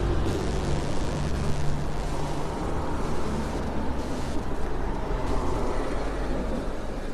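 Steady rushing and rumbling noise of a city bicycle (mamachari) riding along a paved sidewalk, with wind on the handlebar-mounted microphone and tyre noise.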